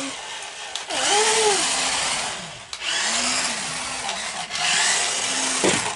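Small electric drive motors and gears of remote-control bumper cars whirring as they drive on a hard floor. The motor pitch rises and falls as the throttle is worked.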